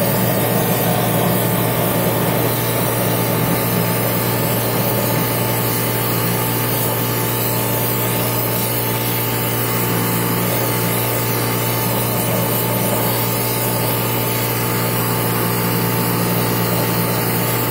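Stick arc welding with a nickel electrode on cast iron: the arc hisses steadily and without a break over a steady low hum, as a bead is run along a crack in a cast iron hydraulic reservoir.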